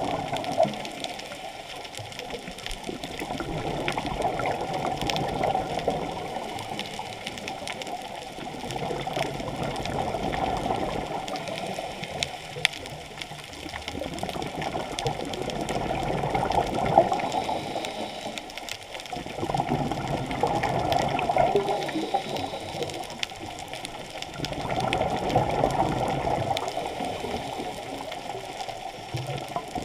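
Muffled underwater bubbling heard through a camera's waterproof housing, swelling and fading about every five to six seconds, in the rhythm of a diver's exhaled air bubbles. A few sharp clicks stand out, one near the start and two more past the middle.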